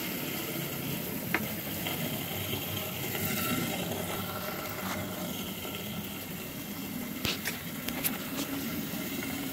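Pump-fed DIY venturi aerating a glass aquarium tank: a steady fizzing and bubbling as fine air bubbles churn the water, with a few faint clicks.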